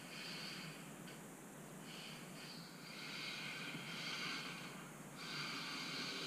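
Kyosho Mini-Z RC car's small electric motor whirring and its tyres hissing across the floor as it drifts, the sound swelling and easing several times and dropping away briefly about a second in and again near five seconds.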